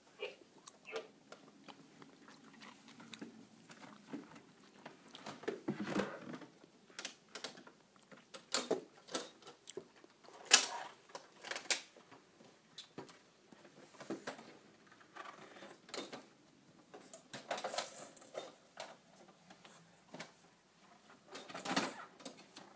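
Plastic toys being handled and knocked about: irregular clacks, taps and knocks, with one sharp knock about ten and a half seconds in.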